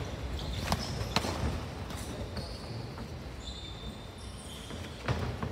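Boxing gloves landing during sparring, with sharp hits several times in the first two seconds, a quieter stretch, then more hits near the end. Shoes squeak briefly on the ring canvas between the hits.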